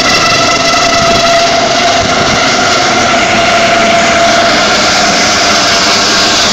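Air ambulance helicopter flying low overhead, loud turbine and rotor noise with a steady high whine running through it.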